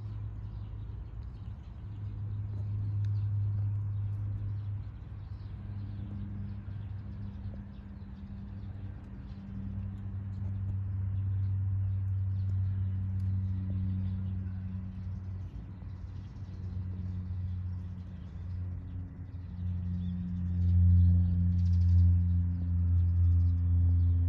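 Low, steady droning hum that swells and fades and grows louder near the end, with faint bird chirps above it.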